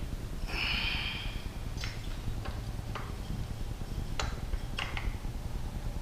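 Small parts and hand tools being handled during motorcycle wiring and hardware work. There is a brief hiss about half a second in, then about five light clicks and taps spread through the rest, over a steady low hum.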